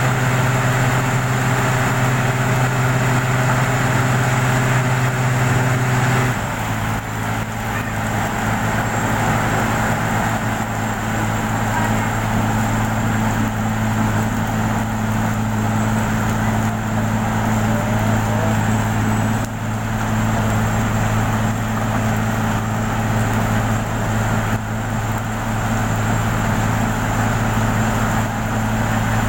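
A motor engine running steadily, its pitch dropping slightly about six seconds in as it slows a little, then holding steady.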